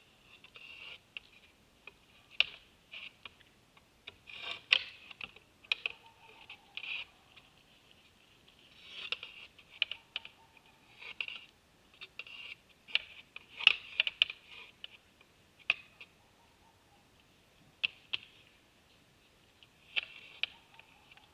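Irregular sharp clicks and knocks from deer at a feeder, coming one or two a second with some quick clusters.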